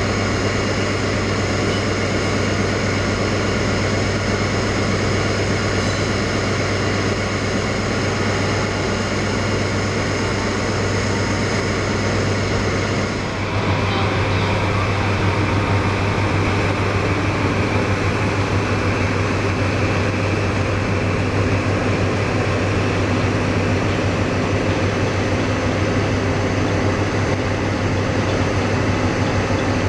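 Steady diesel engine drone with a strong low hum and several steady tones. About 13 seconds in the sound changes abruptly to the idling engine of a Class 47 diesel locomotive, whose low hum is a little louder.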